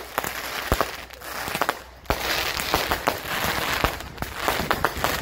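Consumer fireworks going off: scattered sharp pops at first, then from about two seconds in a dense run of crackling, many small snaps close together.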